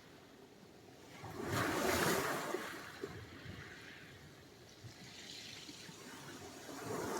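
Sea surf: a wave breaks about a second in, loudest near two seconds, then washes back and fades to a low hiss of water. A softer swell follows, and the next wave starts to break near the end.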